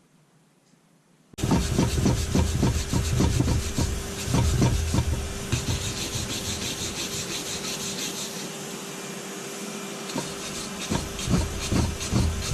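Rapid, uneven scraping or rubbing strokes over a steady hum, starting and stopping abruptly.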